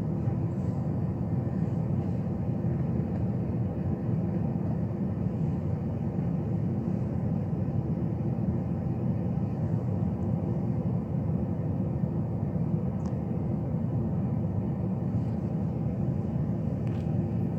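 Steady low rumble of background noise, with a couple of faint clicks late on.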